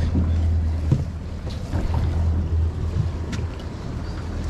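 Uneven low rumble of wind buffeting the microphone aboard a small boat, with a few light knocks about a second in and again past three seconds.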